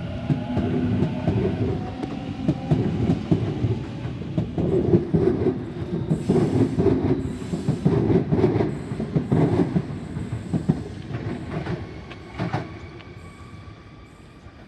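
Sydney Trains Waratah double-deck electric trains departing. There is a steady rumble of wheels on rail, with a faint rising motor whine in the first second or so and repeated clickety-clack over the rail joints. It is loudest in the middle and fades away over the last few seconds.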